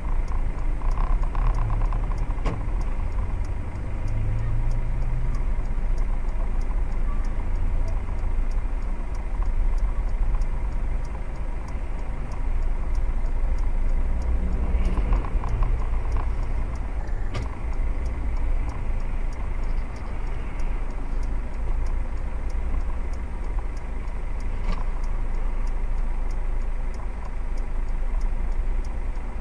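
Steady low rumble of a car engine idling with surrounding traffic noise, heard from inside a car through a dashcam, with a faint regular ticking.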